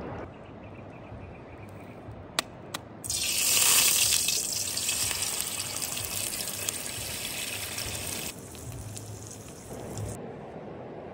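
Eggs frying in a hot aluminium pan over a wood fire: two sharp taps, then a loud sizzle that jumps up about three seconds in. The sizzle eases a little after about eight seconds and stops suddenly near the end.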